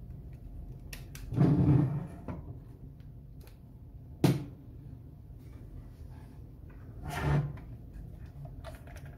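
Handling noises as the opened Kunkin KP184 electronic load's metal case is picked up and turned over by hand: a rustling scrape about a second in, a sharp knock around four seconds, and another scrape near the end.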